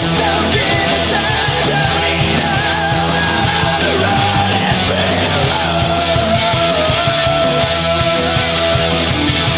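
Punk rock band playing: distorted electric guitars, bass and drums with cymbals, under a shouted vocal.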